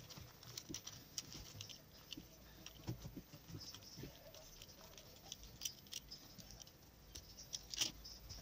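Faint, irregular clicks and scratches of a snap-off utility knife cutting along the glued rubber seam of an electric blanket's fabric cover, with a sharper click near the end.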